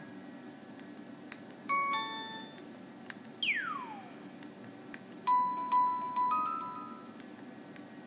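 LG KS360 mobile phone's built-in message alert tones played one after another through its small speaker. There is a short chime about two seconds in, a single falling swoop at about three and a half seconds, and a quick run of bright beeping notes between five and six and a half seconds, the loudest of the three.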